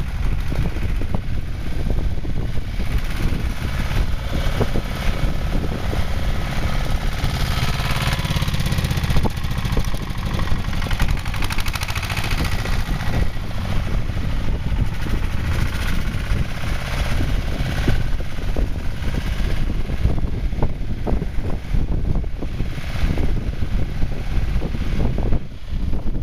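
Pasquali small tractor's engine chugging steadily under load as its hydraulically mounted snow blade pushes snow; it grows louder in the middle as the tractor comes close, then eases as it moves off.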